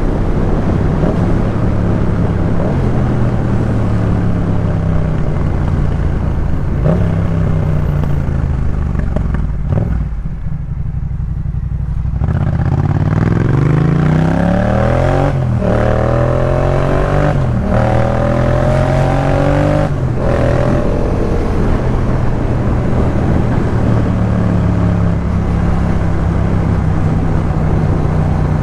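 Yamaha MT-07's 689 cc parallel-twin engine breathing through a Jeskap K4 full aftermarket exhaust, running steadily under way. About ten seconds in the throttle closes and the sound dips. Then the engine pulls hard with rising pitch through three quick upshifts, each a sudden drop in pitch, before settling back to a steady cruise.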